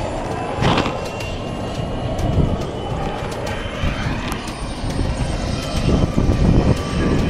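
A light propeller aircraft's engine running, mixed with irregular gusts of wind on the microphone.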